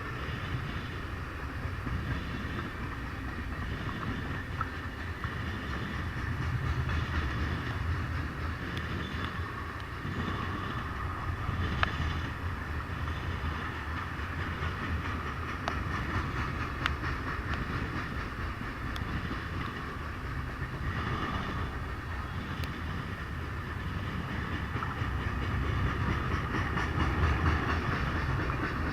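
Freight train cars rolling past on the track: a steady rumble of wheels on rail that swells and eases, with scattered sharp clicks.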